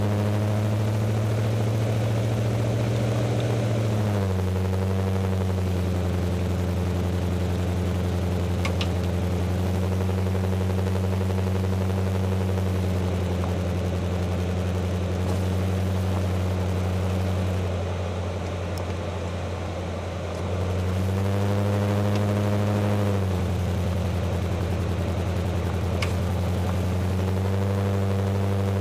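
Jeep Grand Cherokee WJ engine idling steadily, its idle speed stepping down and back up a few times.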